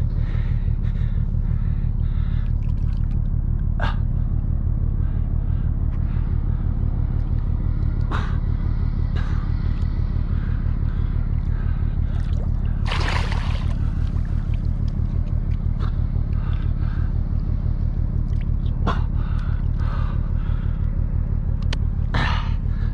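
Steady low rumble throughout, with scattered clicks and scrapes and one brief rush of water about 13 seconds in, as a landed mulloway is handled at the water's edge among rocks.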